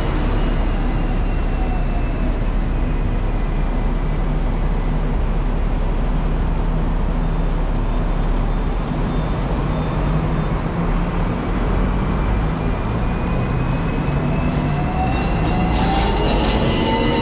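Hong Kong double-decker electric tram running on street rails with a steady rumble. Its motor whine falls in pitch over the first few seconds and rises again from about fourteen seconds in as the tram picks up speed.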